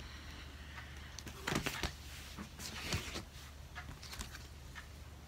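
Rustling of a large paper lyric insert as it is handled and turned over, with the strongest rustles about a second and a half in and again around three seconds, over a low steady hum.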